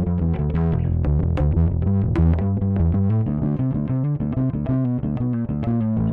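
Alien Audio Constellation electric bass played direct, on its P-style pickup alone with the built-in overdrive engaged: a fast run of picked notes with a gritty, distorted tone.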